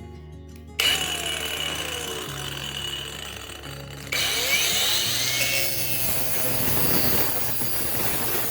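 Power saw, most likely a circular saw, cutting through wood. The noise starts about a second in and grows louder and harsher about four seconds in. Background music with steady low notes plays underneath.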